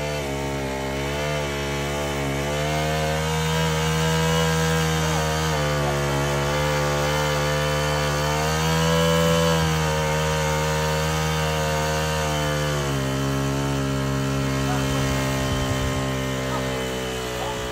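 Small engine of a gas-powered water pump running steadily. Its pitch wavers up and down, then drops and settles lower about thirteen seconds in.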